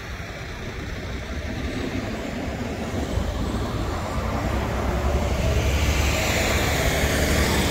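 Road traffic with a tractor-trailer truck approaching and passing close by, its engine rumble and tyre noise growing steadily louder over the last few seconds.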